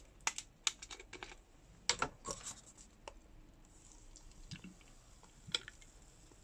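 Light plastic clicks and taps as the screw cap of a plastic soda bottle is twisted off and handled, then a faint hiss of carbonated soda being poured into a paper cup about four seconds in, and a single sharp tap near the end.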